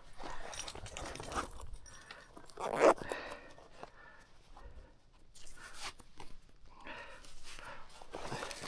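Footsteps crunching in snow and brushing through dry cattails, in an irregular run of crunches and rustles with one louder brush about three seconds in.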